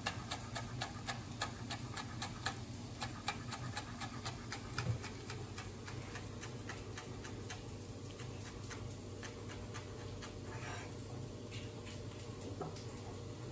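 Chef's knife slicing fresh chives thin on a cutting board: quick, even taps about four a second, which stop after about eight seconds, leaving only a few scattered taps.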